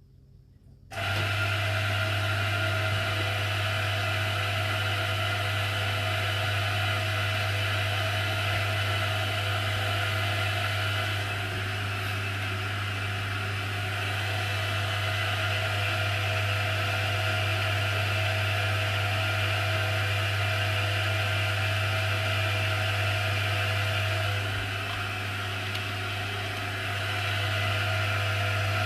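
Hot water pump switching on about a second in and running with a steady hum and whine. Its level dips slightly twice.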